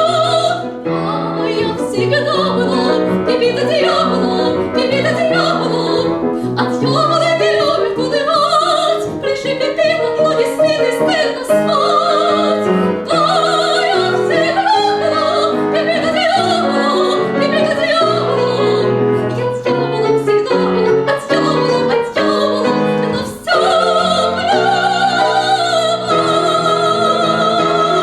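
Soprano singing an operetta aria with piano accompaniment, a lively line over piano chords; for the last few seconds she holds a long note with vibrato.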